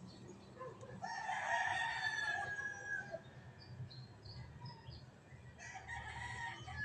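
A rooster crowing: one long crow of about two seconds starting a second in and trailing off at its end, then a second, shorter crow near the end, with short high chirps in between.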